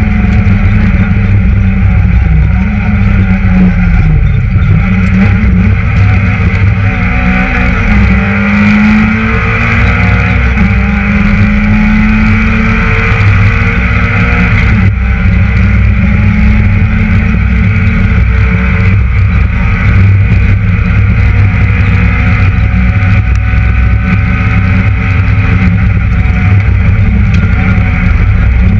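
Citroën Saxo VTS rally car's 1.6-litre 16-valve four-cylinder engine running hard at high revs, heard from inside the cabin, with its pitch climbing and dropping as it accelerates, shifts and slows for corners, and a short lift about halfway through.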